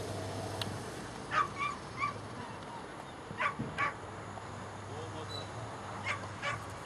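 A dog yelping in short, high, sharp yips, seven of them in three quick clusters, over a steady low hum.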